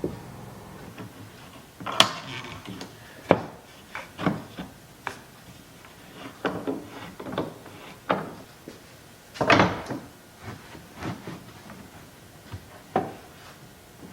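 Wooden boards being handled and laid in place: scattered knocks and clunks of wood on wood, with a longer scrape of a board sliding a little past halfway through.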